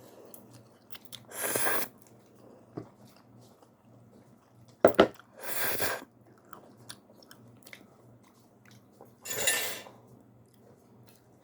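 A person eating instant ramen noodles: three short slurps about four seconds apart, with quiet chewing and small mouth clicks between them.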